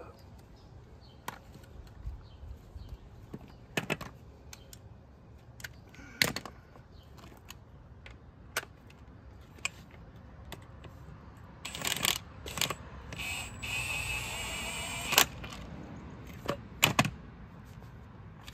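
Scattered metal clinks and knocks of tools and steel steering linkage parts being handled on pavement. A cordless power tool runs for about three seconds a little past the middle.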